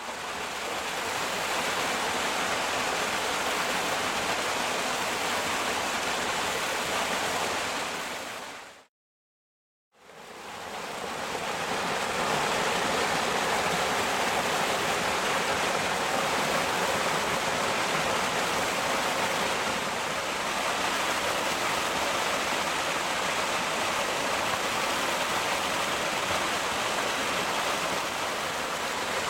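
Waterfall splashing, a steady rushing hiss of falling water. About nine seconds in it fades out to silence for about a second, then fades back in and carries on steadily.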